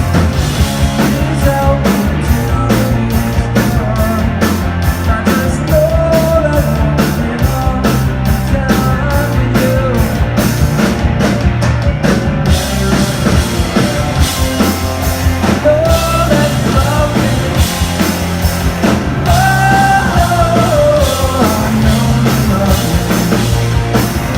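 Rock band playing live and loud: electric guitars, bass and drum kit in a driving punk-rock song. A steady hi-hat beat gives way about halfway to a continuous cymbal wash.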